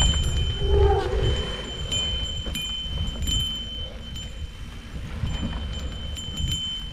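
Mountain bike riding down a bumpy dirt singletrack: a steady rumble of tyres and frame over the ground, with a bell-like metallic jingle and light clicks ringing out every second or so as the bike jolts.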